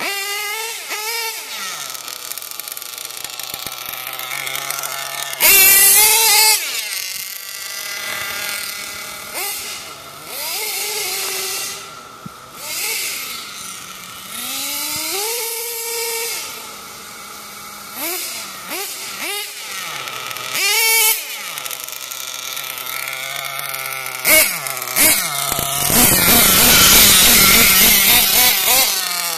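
Nitro RC car's Picco .28 two-stroke glow engine with an ERCM Endbleed pipe, revving up and down in high-pitched sweeps as the car accelerates, brakes and passes. It is loudest near the end.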